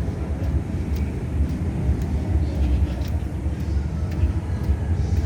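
Busy city street while walking: a steady low rumble of passing traffic, with faint scattered ticks.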